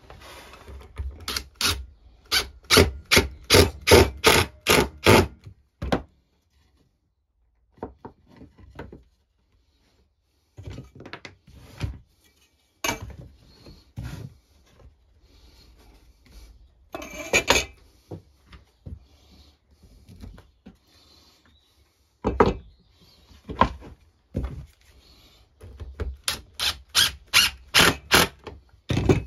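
A hand tool scraping wood in short, even strokes, about two to three a second, in runs near the start and again near the end, with scattered single strokes and quiet gaps between.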